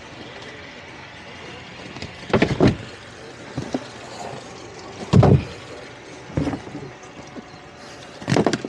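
A handful of heavy thumps and clunks, spaced irregularly, the loudest about halfway through, as things are moved about on a fiberglass boat's cockpit deck. A steady hiss runs underneath.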